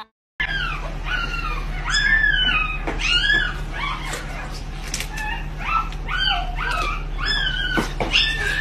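Puppies whining and yipping in a string of short, high, rising-and-falling cries, about two a second.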